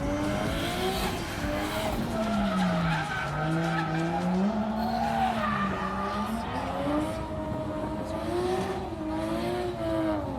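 A drift car's engine revs up and down repeatedly through a slide, its tyres skidding.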